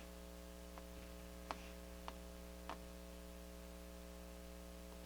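Faint steady electrical mains hum, with four faint short clicks about half a second apart during the first three seconds.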